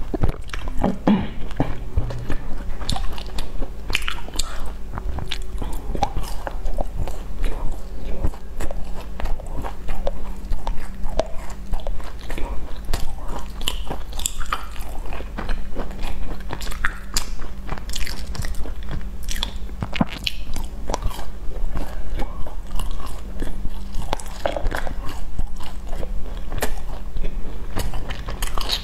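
Close-miked biting and chewing of sesame-coated glazed pastries: crunchy bites and many small mouth clicks throughout, over a steady low hum.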